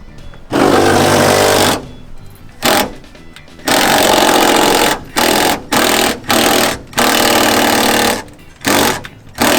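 Cordless impact wrench hammering in about nine bursts, some over a second long and others brief, as it works on rear-seat bolts.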